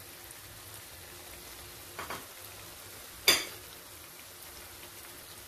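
Chicken masala sizzling faintly in a kadai, with chopped onion and capsicum just added. A light double knock comes about two seconds in and a sharper, louder clack a second later, kitchenware striking the pan.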